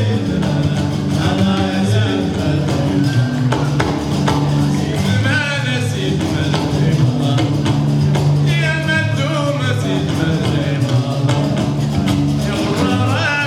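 Gnawa music: a repeating bass line of plucked notes under a steady clatter of metal castanets (qraqeb), with sung phrases about five, eight and thirteen seconds in.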